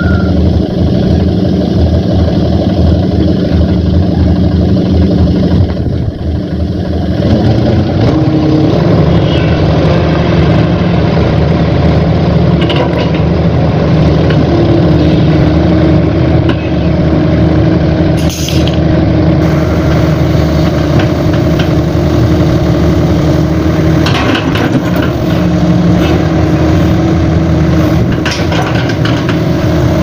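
Tracked hydraulic excavator's diesel engine running loud and steady, its note picking up about seven seconds in as the machine works, with a short hiss just past the middle.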